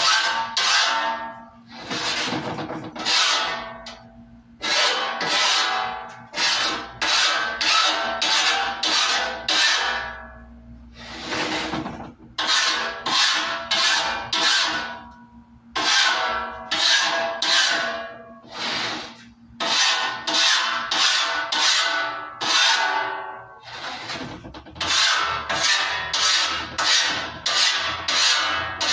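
Rapid back-and-forth rubbing strokes by hand across the face of a large round sign panel, about two strokes a second, in runs of several seconds with brief pauses.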